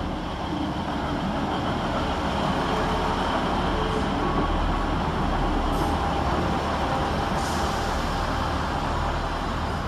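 ScotRail Class 158 diesel multiple unit drawing slowly into the platform: steady running of its underfloor diesel engines and wheels on the rails as the carriages pass close by. Two short hisses come about six and seven and a half seconds in.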